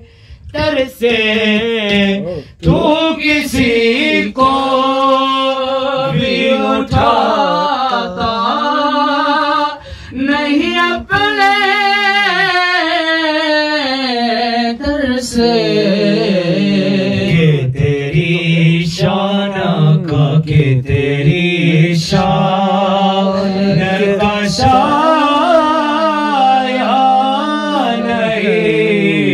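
A man singing solo into a microphone over a PA, in long, wavering, ornamented held notes, with a few scattered strokes on a dholak.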